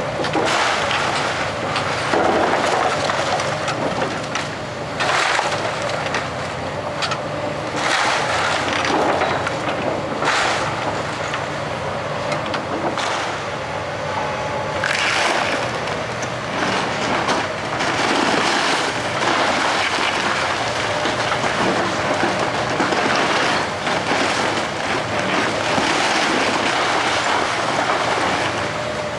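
Komatsu hydraulic excavator's diesel engine running steadily while its bucket tears into a brick-and-wood house wall, with repeated crashes and cracking of breaking timber and falling debris every few seconds.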